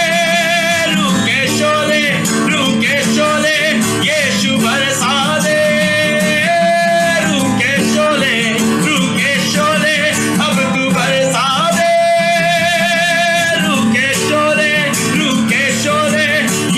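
Live worship music: a voice holding long, wavering sung notes over a steady instrumental accompaniment.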